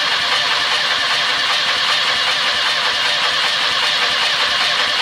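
VW bus air-cooled flat-four engine cranking on its starter with an uneven cranking cadence: only three cylinders have compression, so one stroke in each cycle is weak and the cranking speeds up through that spot.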